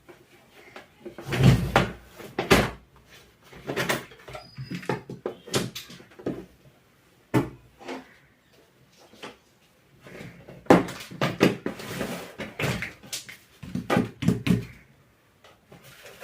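Handling sounds of a mixer grinder being taken apart: irregular clicks, knocks and short scrapes of plastic housing and tools as the screws are undone and parts are set down.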